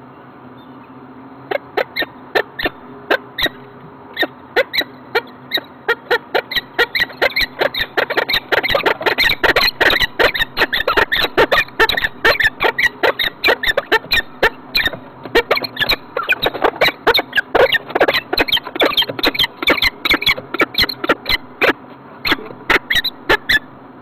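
Peregrine falcons calling at the nest ledge as prey is brought in: a long run of short, sharp calls, sparse at first, quickening to about three or four a second, then thinning out near the end.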